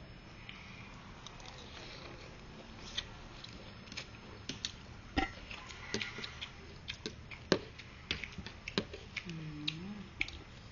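Utensils clicking against a bowl while eating noodle soup: a scatter of sharp separate clicks and taps, with a brief low hum that dips and rises near the end.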